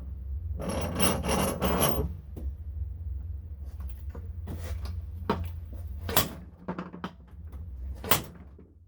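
Motorcycle fork parts being handled and worked by hand: about four quick rubbing, scraping strokes, then scattered knocks and clicks, the sharpest one near the end.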